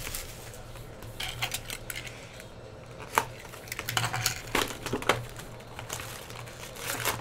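Foil trading-card packs crinkling and clicking against each other as they are lifted out of a cardboard hobby box and stacked on a table, a scatter of short sharp taps and rustles.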